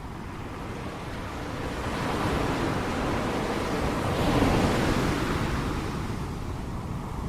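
Ocean waves breaking on the shore: the surf rises to a peak about four and a half seconds in, then fades.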